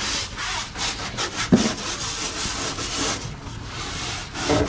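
Clay bar rubbed quickly back and forth over smooth fiberglass gel coat, a steady scrubbing rasp as it lifts embedded black specks of rust.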